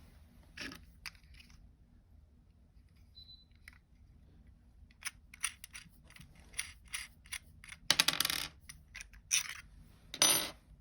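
Small plastic clicks, ticks and scrapes from a handheld electronic controller's housing being handled, with two louder scraping bursts near the end.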